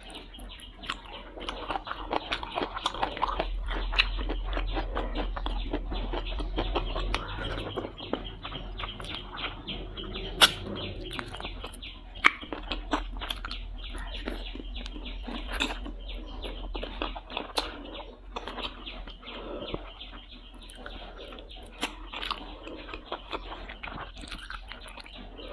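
Close-miked eating of soft stewed duck feet: wet chewing, sucking and lip-smacking as the skin and meat are pulled off the small bones. Sharp clicks come all through it, the loudest about ten and twelve seconds in.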